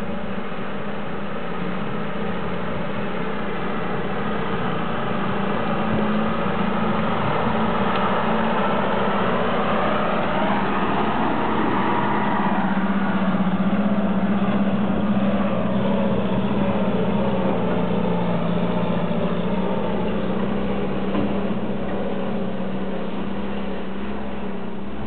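BA-64B armoured car's four-cylinder petrol engine running steadily as the vehicle drives along a dirt track. It grows louder as the car passes close about halfway through, then eases off as it moves away.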